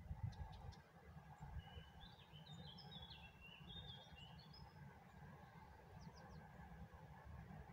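Faint outdoor quiet with a low steady rumble, over which a small bird sings a quick run of chirped notes for a few seconds around the middle, with a few faint high ticks.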